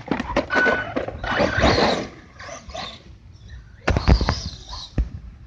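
A dog panting and snuffling as it noses at an RC truggy, with irregular clicks and knocks from the truck's plastic body.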